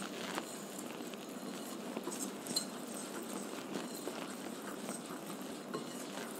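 Wire whisk beating flour and cocoa into wet cake batter in a glass bowl. The wires make a steady run of quick clicks and scrapes against the glass.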